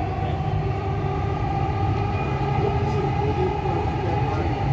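Dubai Metro train running at speed, heard from inside the carriage: a steady low rumble of wheels on the track with a steady whine above it.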